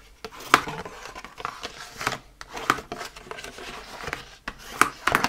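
Dark green cardstock being folded along its score lines and the creases burnished with a bone folder: paper rustling with several short, sharp scraping strokes.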